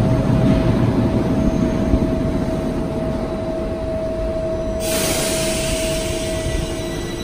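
Bucharest Metro train standing at the platform with doors closed: a steady low rumble with a constant hum tone. About five seconds in, a sudden loud hiss starts and holds, and faint high steady whines come in near the end.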